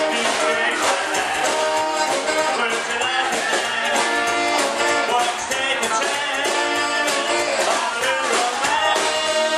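Live rock and roll band playing a fast number with a steady beat, with an upright double bass in the line-up.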